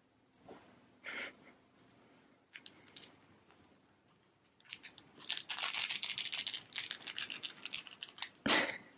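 Scratchy rustling and crinkling of a plush sushi cat toy being rubbed against a cat, a dense run of rapid scratches from about five to eight seconds in, after a few soft scattered clicks.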